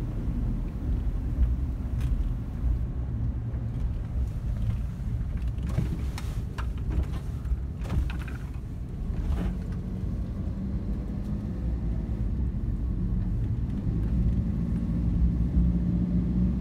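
Engine and road noise heard from inside a moving minibus: a steady low rumble with a few brief knocks or rattles around the middle, and the engine hum more distinct in the second half.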